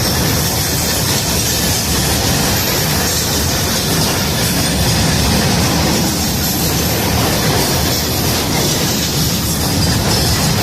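Freight train passing at high speed: a loud, steady noise of the wagons running over the rails.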